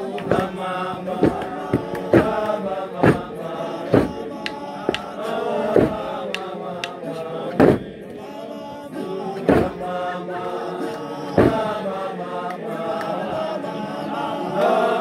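A group of voices chanting a song together, broken by loud, sharp percussive strikes every second or two.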